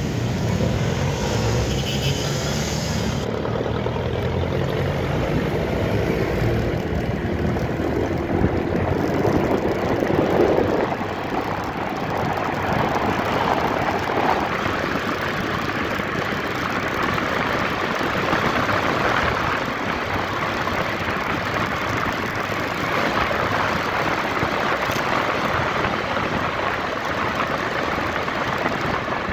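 Motorcycle engine running while riding along a city road, with a steady rush of wind noise on the microphone. The noise swells briefly about nine to ten seconds in.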